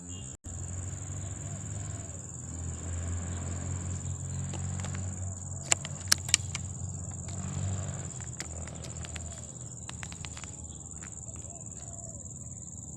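A steady, high-pitched chorus of insects, with a low rumble beneath it. Three sharp clicks come in quick succession about six seconds in.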